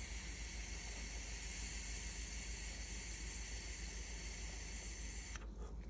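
Steady hiss of a dab being drawn through a hot Warhead banger tip and silicone tubing into a glass water rig as the concentrate vaporizes; it stops about five and a half seconds in.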